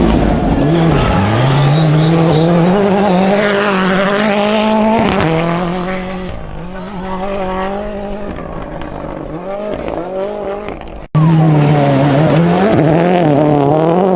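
Rally car engines on a gravel stage: an engine revving hard with pitch rising and dropping through gear changes, easing off and quieter about six seconds in. About eleven seconds in an abrupt cut switches to another car, loud again and revving.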